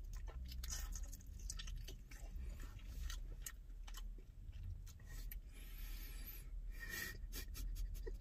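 A person chewing and smacking on hot honey chicken wings close to the microphone: a string of short wet clicks and crunches over a low, steady rumble.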